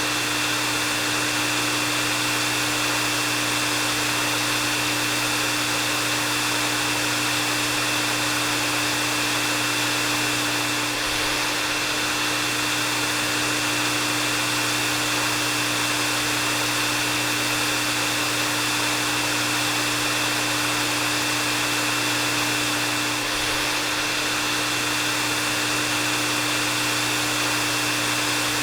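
Electric hair dryer running steadily: an even rush of air with a constant high whine and a low hum underneath.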